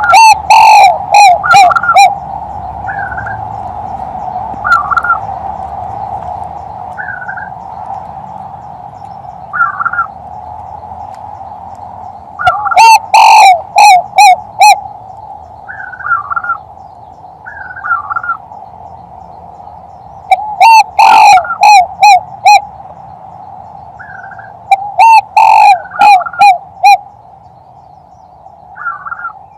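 Male spotted dove giving its three-note 'kuk 3' coo, a lure call for hunting, in four bouts of five or six notes: at the start, about 13 seconds in, about 21 seconds in and about 25 seconds in. The coos are very loud, hitting full level. Between them a fainter short call repeats every couple of seconds over a steady low hum.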